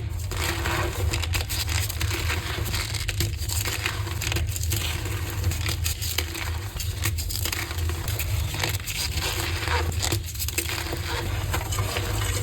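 Reformed gym chalk being crushed and crumbled, a continuous crisp crunching with many small crackles.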